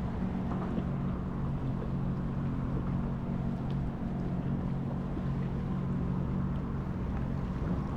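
Steady low engine drone with wind and water noise, unchanging throughout.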